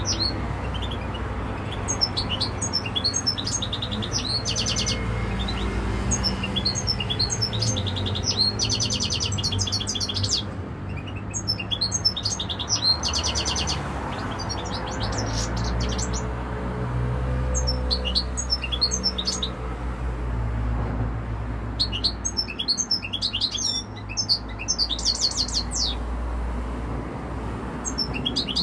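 Caged European goldfinch singing: phrases of rapid, high twittering notes several seconds long, separated by short pauses, over a low steady rumble.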